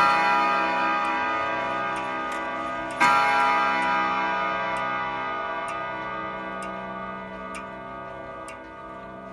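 A tall-case clock's hammers striking its chime rods twice, about three seconds apart, each stroke ringing out and slowly fading, over the steady ticking of the movement.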